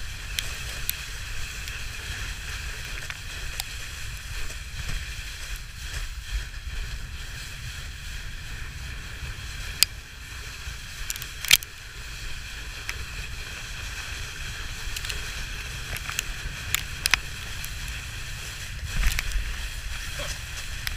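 Toboggan sliding down a packed-snow run: a steady hiss of runners over snow over a low rumble, broken by a few sharp knocks, the loudest about ten and eleven and a half seconds in.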